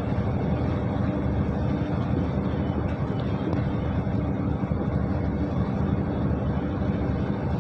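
Steady engine drone and road noise heard inside a lorry's cab while it drives along a highway at speed, with a constant low hum under the rushing noise.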